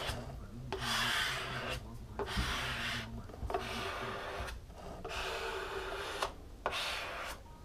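Small plastic squeegee swiping over wet grip film on a kneeboard deck in overlapping strokes: a series of about six short rubbing swishes, roughly one a second.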